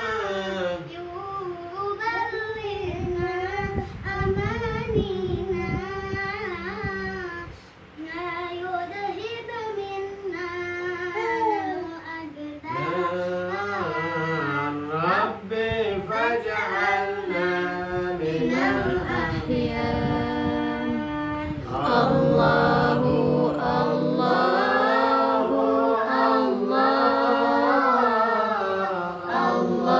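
A high female voice singing sholawat, an Islamic devotional song, in a richly ornamented melody with long wavering, gliding notes. Around two-thirds of the way through, more voices join and the singing grows fuller and louder.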